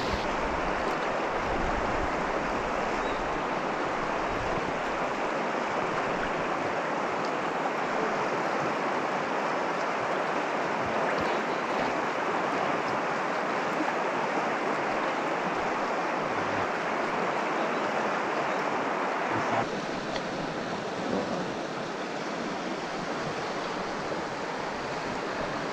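Steady rush of river water running over shallow rapids. About twenty seconds in, the rush steps slightly quieter and duller.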